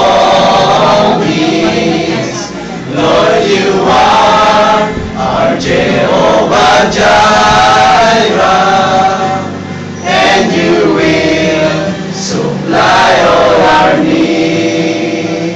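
A group of men singing a Christian song together in several short phrases.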